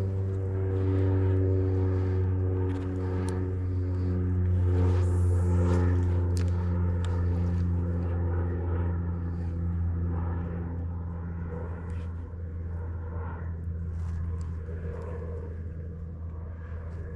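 An engine drone with a low steady pitch, swelling to its loudest about five seconds in and then slowly fading, like a motor passing at a distance.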